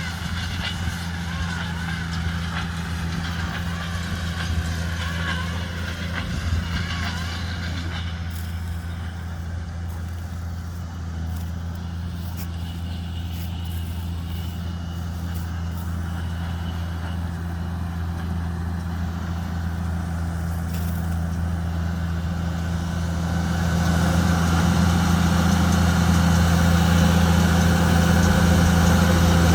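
Tractor engine running steadily under load while pulling a combination baler-wrapper. The low drone grows louder about 24 seconds in.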